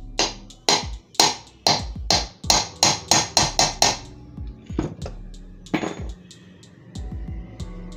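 Hammer blows driving a ceiling fan's cast end cover off its bearing seat: about a dozen sharp metal strikes, coming faster, then two more spaced out. Background music plays underneath.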